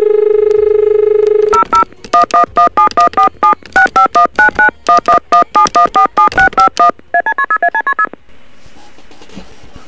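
Telephone dial tone held for about a second and a half. It gives way to a long string of touch-tone (DTMF) keypad beeps as a number is dialled, then a quicker run of about ten beeps stepping upward in pitch. The line then goes to a faint hiss.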